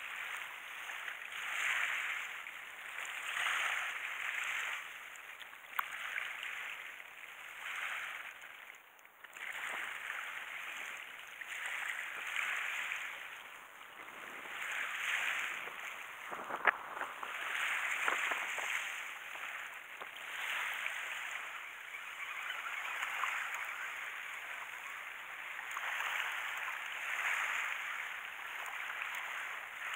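Small waves washing onto the shore, swelling and falling back about every two seconds, with one sharp click a little past halfway.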